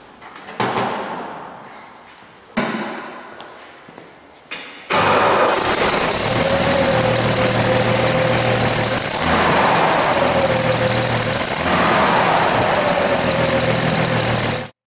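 Three sharp knocks, each ringing away, then the 1965 Toyota FJ pickup's engine running from about five seconds in, revved up and settling back twice, before the sound stops abruptly near the end.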